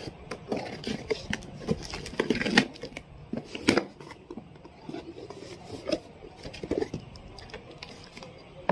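A cardboard box being opened with scissors: the blades snip and slit packing tape, and the cardboard rubs, scrapes and knocks as the flaps are pulled and the box is turned, with sharper knocks about 2.5 and 3.7 seconds in.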